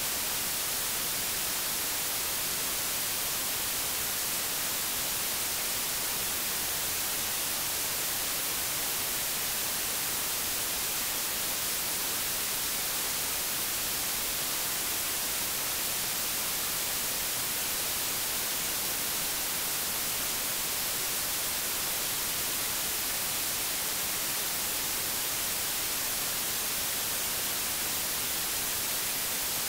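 Steady static hiss from the VHS tape's soundtrack, strongest in the high end, with no other sound audible over it.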